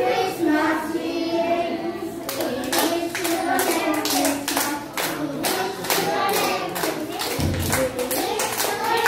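A group sings a song while small children clap their hands in a steady rhythm; the clapping starts about two seconds in.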